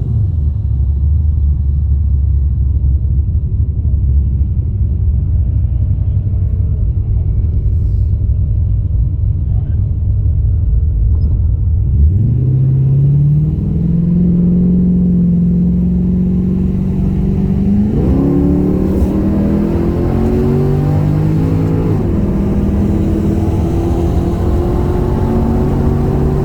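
Holden VX Commodore SS's 5.7-litre LS1 V8 with an aftermarket exhaust, running low and steady at first. About halfway in it is opened up to full throttle: the note climbs sharply and pulls up through the gears in a hard run.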